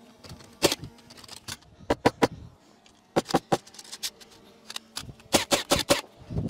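Hammer driving nails into a timber post: about a dozen sharp knocks, bunched in quick runs of two to five strikes.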